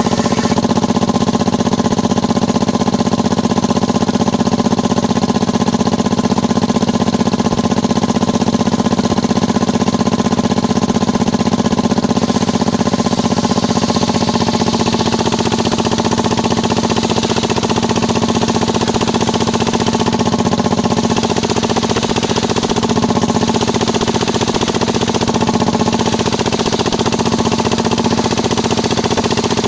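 Mini circular sawmill (serkel kayu) running with a steady, even machine drone.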